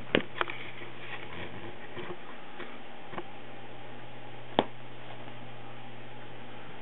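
A cat pawing and tugging at a cardboard tissue box: a few sharp taps and clicks, two near the start and the loudest at about four and a half seconds, with faint rustling between them, over a steady low hum and hiss.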